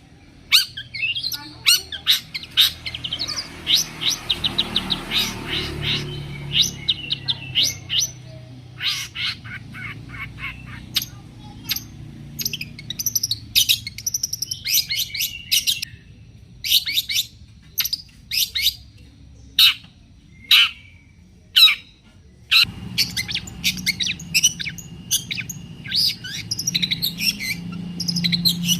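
Long-tailed shrike (cendet) singing: loud, sharp chattering calls and short phrases with pauses between them, including a fast run of rapidly repeated notes a few seconds in, over a low background rumble.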